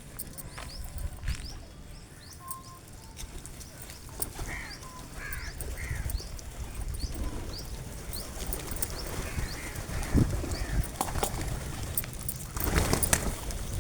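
Birds chirping and calling at a feeding spot: many short, high, rising chirps, with a few lower calls a few seconds in. A steady low rumble runs underneath, and there is a burst of rustling noise near the end.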